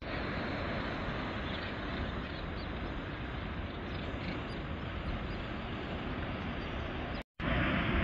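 Steady outdoor rush of wind and breaking sea below a cliff. It cuts out for a moment near the end and comes back a little louder.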